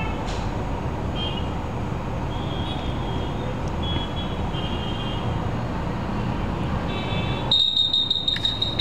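Heavy city road traffic heard from above: a steady rumble of engines with vehicle horns honking on and off several times. Near the end, a louder shrill high tone cuts in over the traffic.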